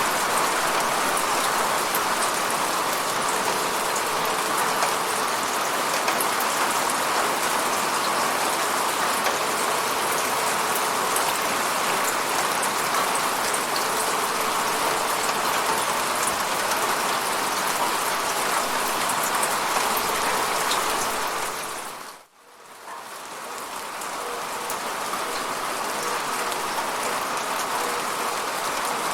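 Steady, heavy rain hitting an apartment window, a dense hiss with fine ticks of single drops. About twenty seconds in it sinks to near silence for a moment, then fades back up over a couple of seconds.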